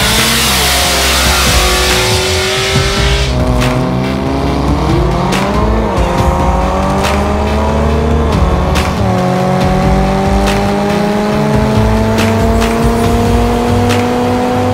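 A race car engine at full throttle from a launch, with tyre noise for the first few seconds. Its pitch climbs and drops back at three upshifts, then keeps rising slowly in the top gear.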